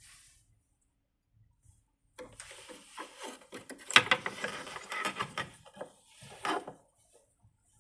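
Rapid, uneven clicking and rattling of a small object being handled, running for about four and a half seconds and loudest in the middle.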